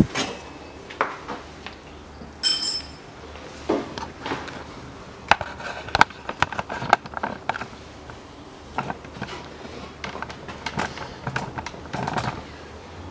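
Irregular clicks, knocks and clinks of metal tools and parts being handled under a car, with one brief ringing metallic clink about two and a half seconds in and a run of sharper clicks a little after the middle.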